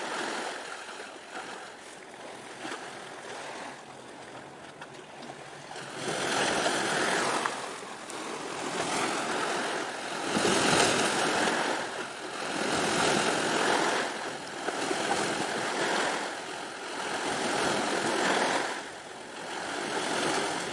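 Small waves washing on the shore. The wash is fainter at first, then after about six seconds comes in steady swells, one every two seconds or so.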